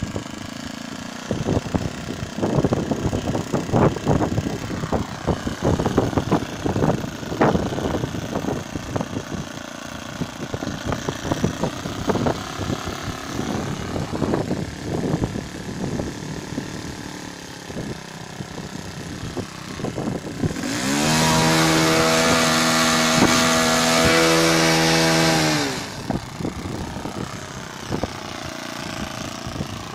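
Model aeroplane engine idling roughly, with wind buffeting the microphone. About twenty seconds in it is opened up to full throttle, a steady high-pitched buzz held for about five seconds, then throttled back to idle.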